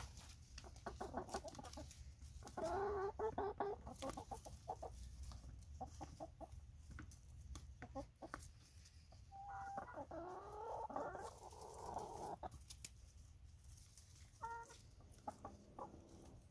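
A flock of hens clucking, with a few short bursts of calls, while pecking at grapes: many quick taps of beaks on a plastic plate.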